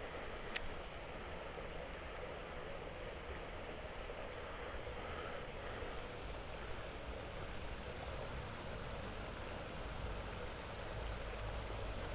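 Steady outdoor background hiss, with a single sharp click about half a second in and a low rumble that builds near the end.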